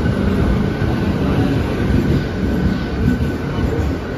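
Western Railway EMU local train running along the platform: a loud, steady rumble of wheels on the rails, with a faint high whine above it.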